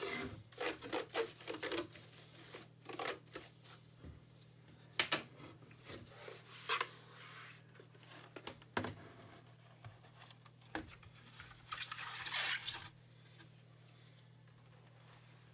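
Hands handling a plastic keyboard and its palm rest: a run of quick clicks, scattered knocks and rubbing, then a longer scraping, tearing noise about twelve seconds in.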